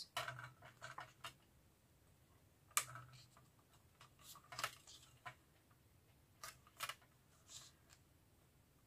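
Faint, scattered rustles and light taps of paper being laid down and pressed flat by hand onto a glued tag, a dozen or so short handling sounds with near silence between.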